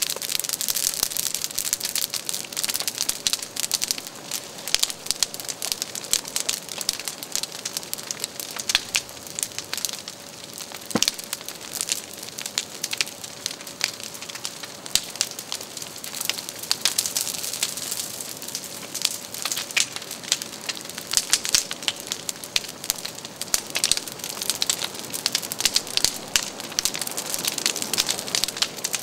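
Large open fire of burning waste crackling continuously, with many sharp pops over a steady hiss of flame.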